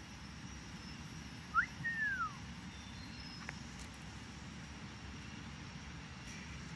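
A bird call in tropical forest: a short rising whistled note about one and a half seconds in, followed at once by a longer down-slurred whistle. A steady forest background runs underneath.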